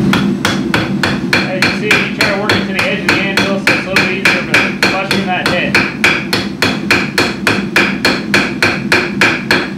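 Hand hammer rapidly striking a quarter-inch hot-set rivet on a steel spatula held on an anvil, about four blows a second, peening the rivet to form its head.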